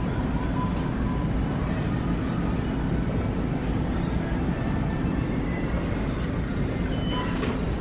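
Steady low rumble of store background noise with a faint hum, broken by a few faint clicks.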